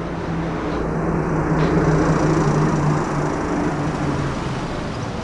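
A car passing close by on the street. Its engine and tyre noise swell to a peak about two seconds in and then fade, with the engine note falling slightly as it goes away.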